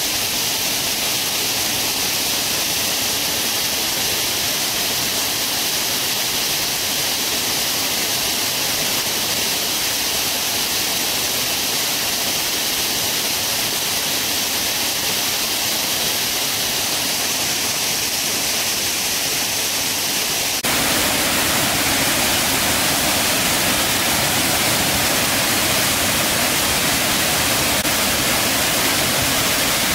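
Steady rushing noise of water, even and without distinct events. Its character changes abruptly about two-thirds of the way through, slightly louder and fuller afterwards.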